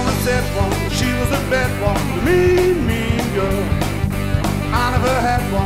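Rock song in an instrumental passage: a steady drum beat under a bending lead melody line.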